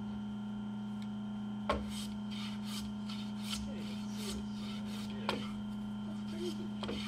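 Hand plane taking short shaving strokes along a walnut rail held in a bench vise, trimming it to fit a joint pocket; several brief rasping passes over a steady background hum, with two sharp knocks, one near two seconds in and one about five seconds in.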